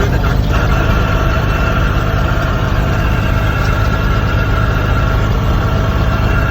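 Cessna 182S's six-cylinder Lycoming engine and propeller idling steadily just after start, still warming up with its temperature low. A thin steady whine sits above the engine sound.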